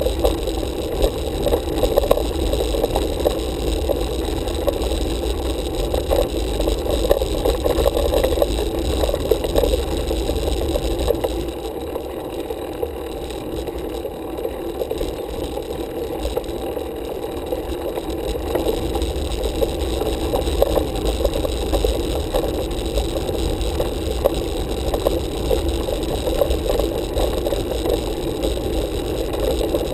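Road bike rolling along a paved lane, picked up by a handlebar-mounted camera: a steady rumble of tyres and road vibration with a rattle through the mount, easing a little for a few seconds around the middle.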